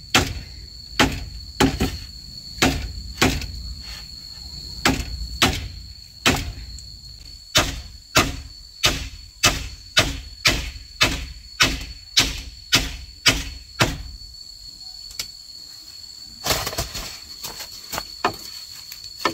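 A long run of sharp knocks, about two a second at their quickest, of a tool striking bamboo; they stop about 14 seconds in. A steady high-pitched insect drone runs behind.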